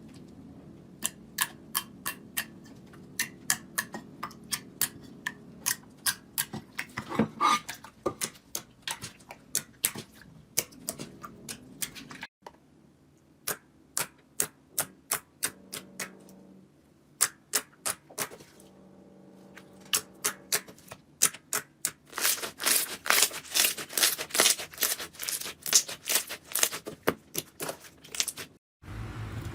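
Slime being pressed and poked, giving a long run of sharp pops and crackles, a few a second, that grow dense near the end.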